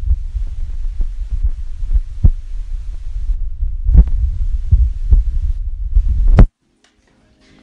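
Muffled low rumble with scattered thumps from a handheld phone microphone being jostled by movement close to it. It cuts off abruptly about six and a half seconds in.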